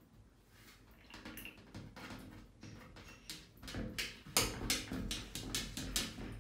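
Rapid tapping and scraping on a glass shower door as a cat paws at it from inside, getting faster and louder in the second half, several taps a second near the end.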